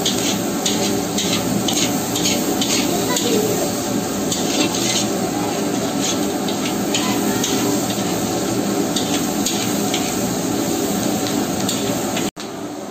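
Sliced onions sizzling as they fry in a large kadai, with a metal spatula stirring and scraping against the pan in quick repeated strokes that are thickest in the first half. The sound cuts out sharply near the end and returns quieter.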